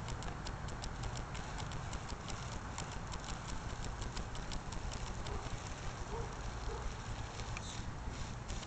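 Modified Losi Night Crawler RC truck crawling over rough ground: rapid, irregular clicking and crunching from the tyres on stones, over a steady low rumble.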